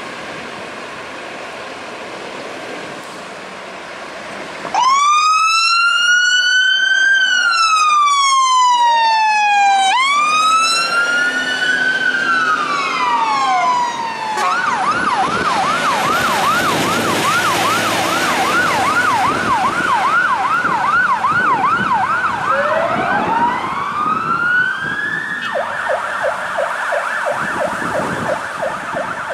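Fire engine siren: after a few seconds of traffic noise it starts with two slow rising-and-falling wails, then switches to a fast yelp. Near the end a rising wail sounds over the yelp before the siren changes to a rapid pulsing tone.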